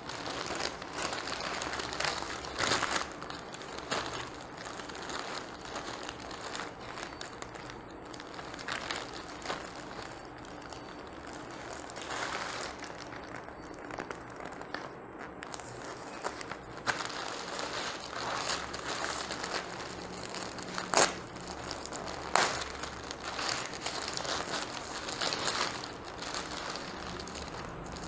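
Subway sandwich paper wrapper crinkling and rustling as it is unfolded and pulled open by hand, in a run of irregular crackles. Two sharper, louder crackles come about three quarters of the way through.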